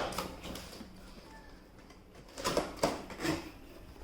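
Handling noises while unboxing a vacuum cleaner: a quick cluster of clacks and rustles from parts and packaging being moved, about two and a half to three and a half seconds in.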